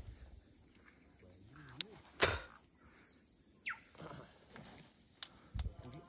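Footsteps and brushing through long dry grass and scrub: a few scattered short snaps and swishes over a quiet background, the loudest a sharp snap about two seconds in.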